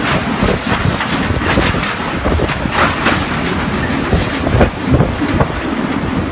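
Typhoon wind blowing hard and buffeting the microphone, with a continuous irregular clatter of knocks and rattles.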